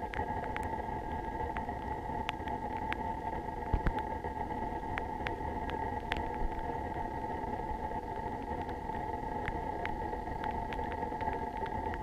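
Scattered raindrops ticking sharply and irregularly, a few per second, over a steady high-pitched whine.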